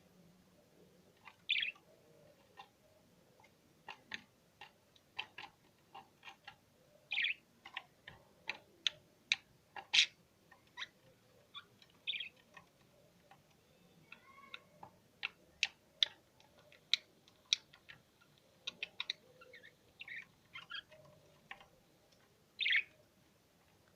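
Small pet cage birds, a canary and budgerigars, chirping: many short, sharp chirps at an irregular pace, with a few longer calls in between.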